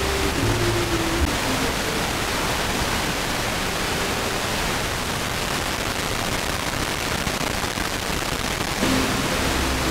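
FM receiver hiss from a very weak, fading signal on 103.7 MHz arriving by auroral propagation: mostly steady static. Faint music from the ABC Classic FM station breaks through in the first second or so and again near the end.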